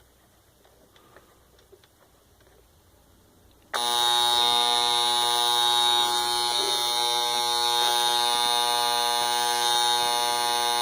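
General Electric 7322K electric alarm clock's alarm going off about four seconds in: a loud, steady buzz that starts suddenly and keeps sounding without a break.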